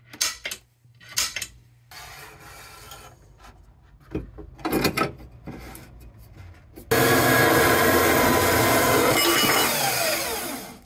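Metal profiles being cut: knocks and rubbing from handling the stock, then about seven seconds in, a power saw cuts steadily and loudly for about four seconds before fading out.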